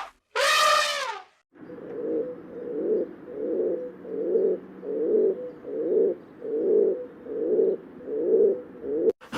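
A pigeon or dove cooing over and over, about ten low coos at an even pace of a little over one a second. It is preceded about half a second in by a single short, louder call that wavers in pitch.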